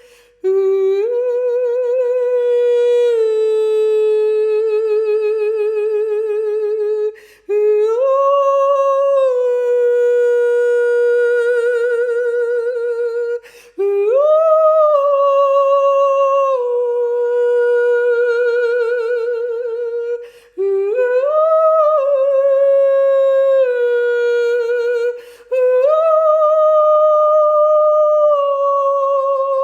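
A single high voice singing wordless, humming-like long tones with vibrato. It sings about five phrases, each starting with an upward slide and settling on a held note, with a short breath between them.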